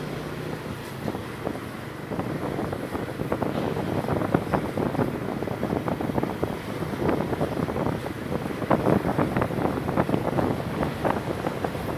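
Motorcycle running during a ride, with wind buffeting the microphone. From about two seconds in, quick rattling knocks come in over the engine.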